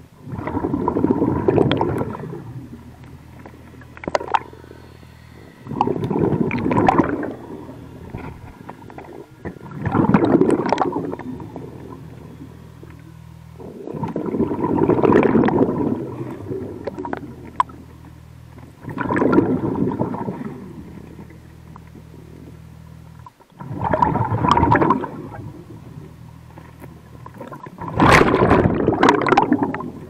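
Scuba-style demand regulator on a surface-fed hookah line, heard underwater: a diver's exhaled breath bubbling out in seven gurgling bursts, one about every four to five seconds. A low steady hum fills the gaps between breaths.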